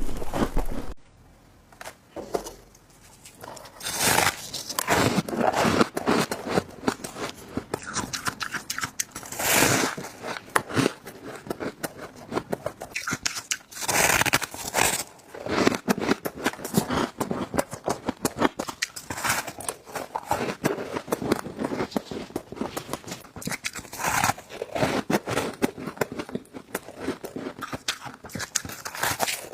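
Close-miked biting and chewing of soft, squeaky freezer frost and shaved ice: a dense run of crisp crunches and crackles, with a short quiet gap about a second in.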